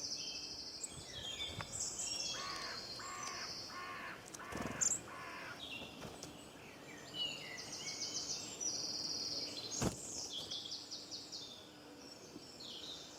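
Outdoor chorus of several songbirds singing high trills and chirps, overlapping. A few seconds in, another bird gives a run of five evenly spaced, lower calls about half a second apart.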